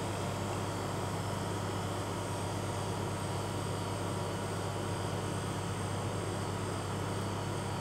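A steady machine hum with an even hiss over it, unchanging throughout.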